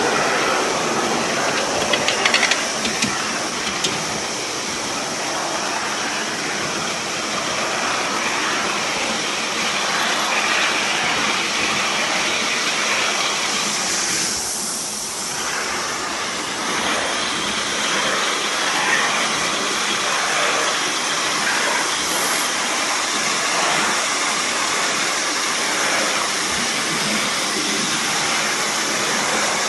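3½-inch gauge Heilan Lassie live-steam model locomotive running along a raised track, with a steady hiss of steam and exhaust and a few sharp clicks about two to four seconds in.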